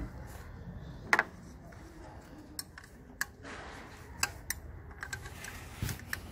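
Scattered small metallic clicks and knocks from hands and tools working on parts in a car engine bay: about six irregular clicks, the loudest about a second in.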